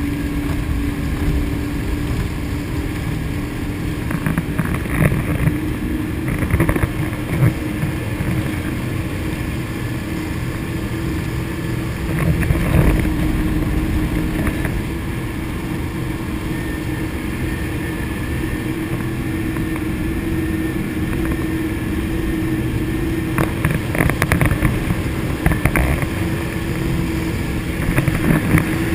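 A high-performance powerboat running flat out at over 100 mph, its engines giving a steady, loud drone with a held tone, over heavy wind and water rush.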